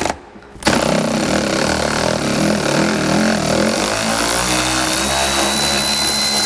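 Cordless electric ratchet motor running continuously on a seat-mounting bolt, starting just under a second in. Its pitch wavers up and down as it strains under load, and a steady high whine comes in during the second half.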